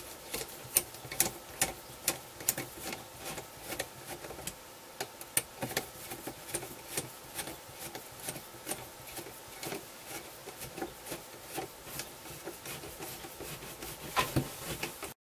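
Allen key and hex driver tightening small bolts on a metal monitor bracket: a steady run of light, irregular metallic clicks and ticks, several a second, as the tool turns and the bracket parts shift. The sound cuts off abruptly near the end.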